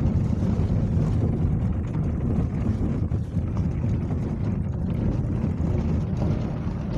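A moving car heard from inside the cabin: a steady, loud low rumble of road and wind noise.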